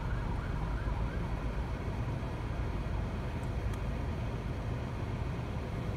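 Wailing siren of an emergency response car fading out about a second in, leaving steady street traffic noise with a low rumble.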